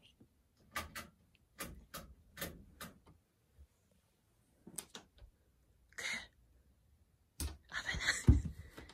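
Scattered soft clicks and rustles of animals shifting on futon bedding, then louder rustling and one heavy thump near the end as a pet jumps down onto the tatami floor.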